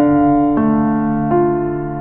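Background music: a gentle electric piano playing sustained chords that change about every two-thirds of a second.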